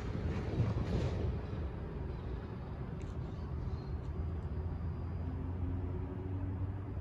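Pickup truck driving away, its noise fading over the first second or two, leaving a steady low traffic rumble.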